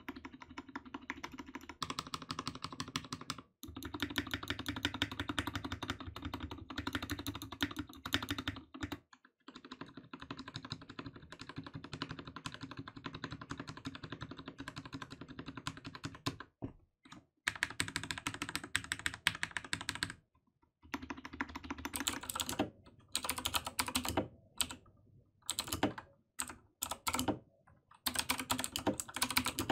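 Fast typing on a lubricated mechanical keyboard, a dense run of key clicks broken by a few short pauses, then in shorter bursts with gaps for the last third.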